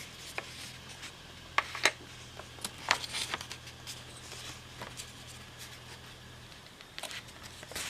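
Scattered light clicks and taps from handling a small circuit-board relay and its test leads during a bench test, over a faint steady low hum.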